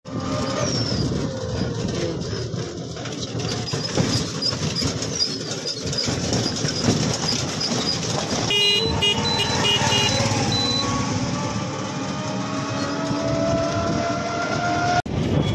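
Road traffic with vehicle horns tooting several times about halfway through, and an engine's pitch climbing steadily over the last few seconds as a vehicle speeds up.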